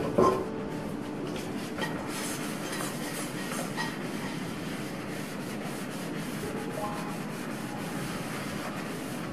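A steady rubbing noise, with faint background music.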